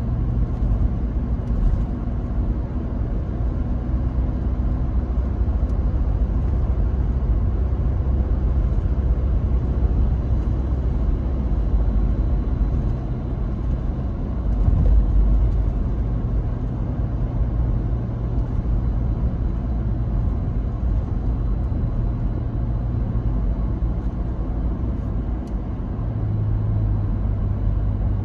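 Car driving at road speed: a steady low rumble of engine and road noise. The engine note shifts a couple of times, and there is a brief louder rumble about halfway through.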